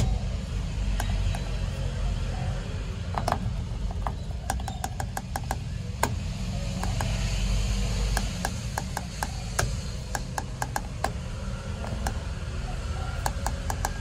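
Sharp clicks and taps from a hand on the steering wheel's horn button, scattered and in quick clusters, over a steady low rumble; the horn itself does not sound.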